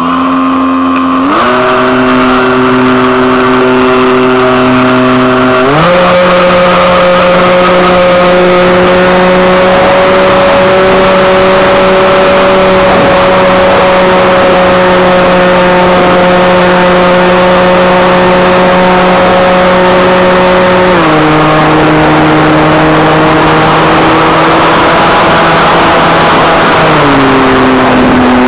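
A model airplane's motor runs very loud and close, heard from a camera strapped to the plane's nose, under a haze of airflow noise. Its pitch steps up about a second in and again at about six seconds, holds steady in flight, then steps down twice near the end as the throttle is changed.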